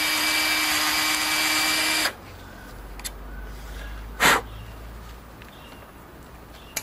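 Cordless drill motor running steadily, spinning an 8 mm threaded rod in a homemade hand lathe, then stopping suddenly about two seconds in. A brief knock about four seconds in and a couple of clicks near the end.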